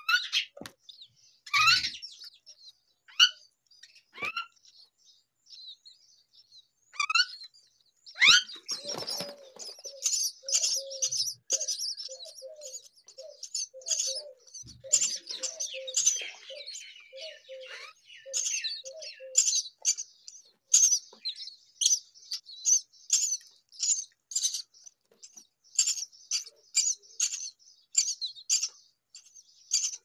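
Myna nestlings begging for food with short, high-pitched chirps while the adult feeds them. A few separate rising calls come first, then about eight seconds in the chirping turns rapid and continuous, two to three a second. For about ten seconds a string of lower short notes runs underneath.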